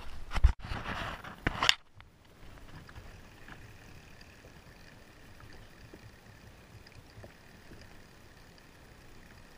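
Rubbing and knocking on the camera as it is handled, with two sharp knocks, stopping abruptly about two seconds in. Then a faint steady hiss of water and wind around the kayak.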